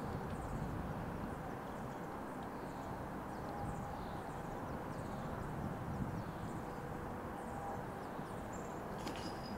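Outdoor ambience: a steady low background rumble with faint, scattered high bird chirps, and a short sharp click near the end.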